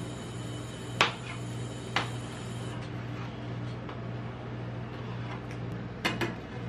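Edge of a metal spatula knocking and scraping on a steel cold plate as it cuts a frozen ice cream sheet into strips: sharp knocks about one and two seconds in and a quick pair near the end, with fainter taps between. A steady low hum runs underneath.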